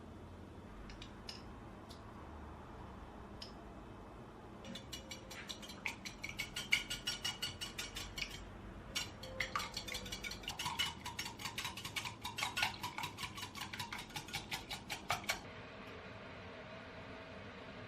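A utensil beating fast against a bowl, as in whisking or beating batter, clinking about four to five times a second in two runs of several seconds with a short break between. A few single light clicks come first.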